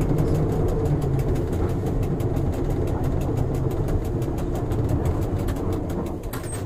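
Electric cogwheel railcar of the Pilatus Railway running slowly on its rack track, heard from inside the front cab: a steady mechanical hum of motor and gearing with a fast, even clicking over it.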